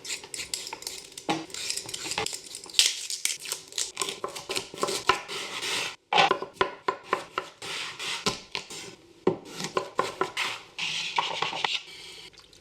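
Kitchen prep sounds: a quick run of clicks and clatters of utensils and cookware, broken by a brief gap about six seconds in.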